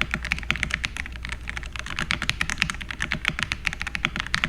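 Fast typing on a mechanical keyboard: a steady run of key clicks, several a second.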